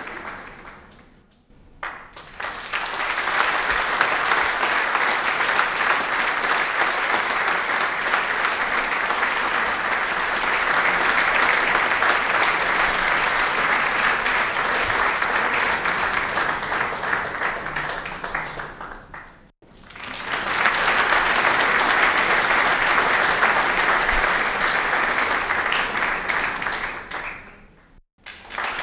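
Live audience applauding: dense, even clapping heard as separate takes, each ending quickly before the next starts. One fades out about a second in, a long burst runs from about 2 s to about 19 s, and another from about 20 s to about 27 s, with a new one starting right at the end.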